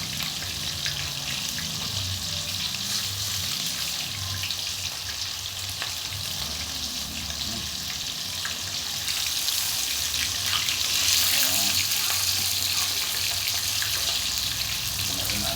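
Cream-of-mushroom gravy sizzling and bubbling in a pan on the stove, with small clicks of a spoon stirring now and then. The hiss grows louder about ten seconds in.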